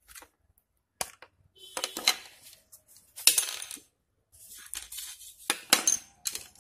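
Plastic parts of a Microsoft optical mouse clicking and clattering as it is taken apart by hand: the shell is separated from the circuit board and set down on a table. A sharp click about a second in, then several bursts of rattling handling noise.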